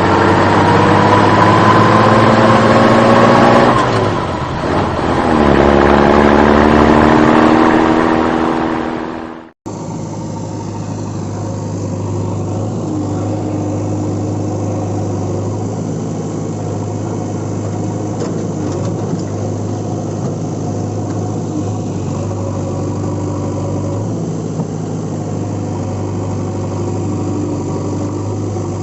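A vehicle engine revving, its pitch climbing, dropping about four seconds in, then climbing again. It cuts off suddenly near ten seconds, and a steadier, lower engine sound runs on at idle after it.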